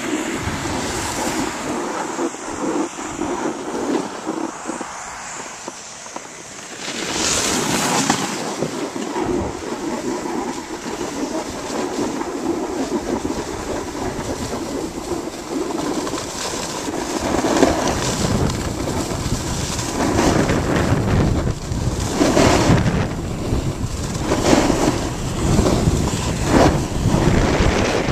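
Edges sliding and scraping over packed, groomed snow on a fast downhill run, with wind buffeting the microphone. In the second half the scraping swells about every two seconds as turns are carved.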